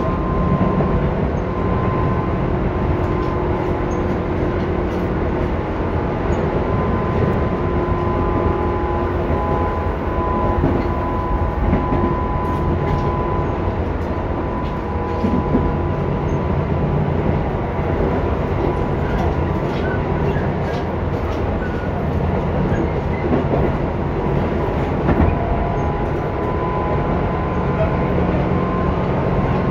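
Running sound inside a Tobu 10030 series electric train car moving along the line: a steady rumble of wheels on rail with a constant whine from the motors and gears, and light clicks over the rail joints.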